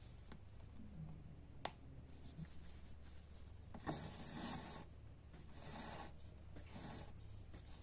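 Embroidery thread being drawn through fabric stretched in a hoop: several soft rasping swishes, the loudest about four seconds in, after a single click. A steady low hum runs underneath.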